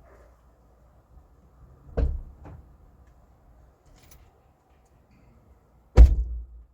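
Two knocks: a knock with a lighter tap just after it about two seconds in, and a louder, heavier thump about six seconds in that rings briefly.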